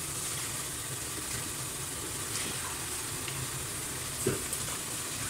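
Stockpot of water at the boil, with a steady bubbling hiss as soup ingredients are dropped in. A short knock about four seconds in, as carrot slices are tipped in from a bowl.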